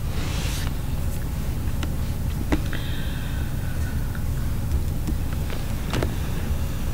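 Steady low background rumble, with a few soft clicks and a faint high tone for about a second and a half near the middle.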